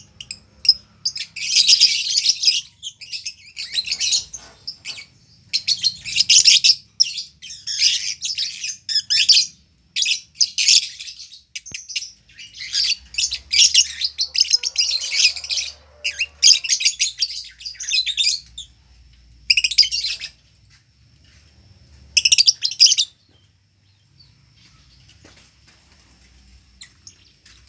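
Lovebird's 'ngekek': long bouts of rapid, high-pitched chattering trills, each lasting one to three seconds, repeating about nine times with short gaps. Faint chatter remains after the last bout near the end.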